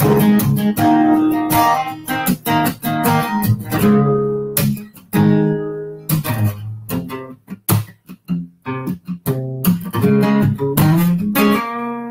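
Solo acoustic guitar strummed in an instrumental break of a country song, chords ringing between the strokes, with a couple of brief let-ring pauses around the middle.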